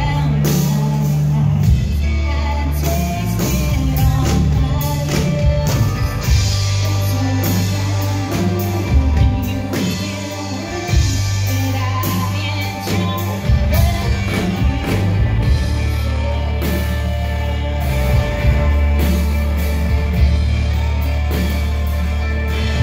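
Live band playing a country-rock song: a woman singing over a twelve-string electric guitar, bass and drums.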